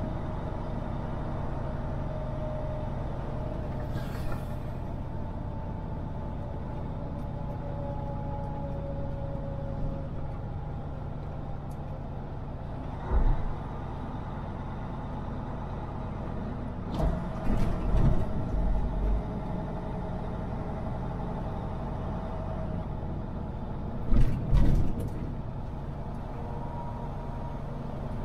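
Semi-truck driving down the road, heard from inside the cab: a steady drone of engine and tyres, with a loud thump about halfway through, a cluster of thumps a few seconds later, and a double thump near the end.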